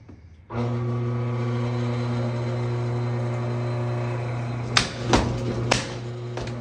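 A tire-style power hammer's motor switches on and runs with a steady hum. About five seconds in, the ram strikes a steel pistol lockbox frozen in a block of ice three times, about half a second apart.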